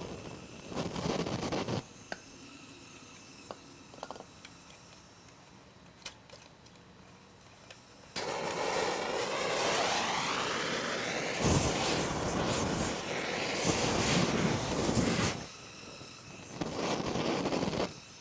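Handheld gas torch flame blowing in on-and-off stretches: about two seconds at the start, a long run from about eight to fifteen seconds, and a shorter one near the end, with quieter gaps and a few small clicks where the flame goes out. The torch will not stay lit.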